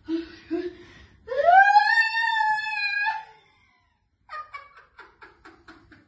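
A woman's long wailing cry that rises in pitch and is held for about two seconds, followed after a short pause by a quick run of short, broken cries like sobbing.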